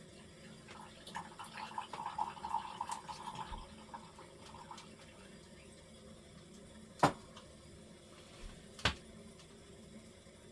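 Hot water poured in a thin trickling stream for a few seconds, as for hand-drip coffee, then two sharp clicks or snaps a couple of seconds apart, the first the loudest.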